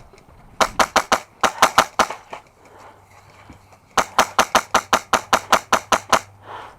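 Airsoft rifle firing rapid semi-automatic shots: two strings of about a dozen sharp cracks each, roughly six a second, with a pause of under two seconds between them.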